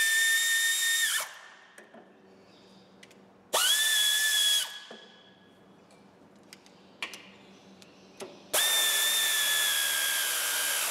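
Handheld electric power tool, such as a drill-driver, running in three short bursts with a steady high whine, the pitch rising quickly as each burst starts. The first burst stops about a second in, the second runs for about a second from 3.5 s in, and the third and longest starts about two seconds before the end; a few light clicks fall between the second and third.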